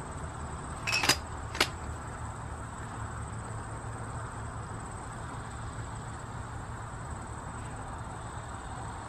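A few short, sharp clicks about a second in, then one more, over a steady low rumble.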